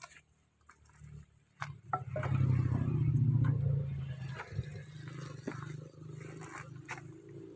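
Wooden planks knocking and clattering as they are laid onto a stack. A low steady hum sets in about two seconds in, loudest for a couple of seconds, then carries on more faintly.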